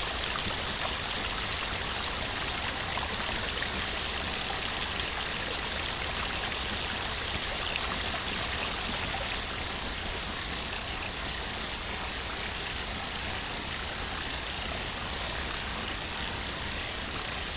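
Waterfall: a continuous, even rush of falling water with a low rumble beneath, easing slightly about halfway through.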